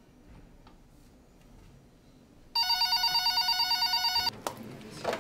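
Telephone ringing: a single ring with a rapid warble, starting about halfway through and lasting under two seconds, after a stretch of quiet room tone with a few faint clicks.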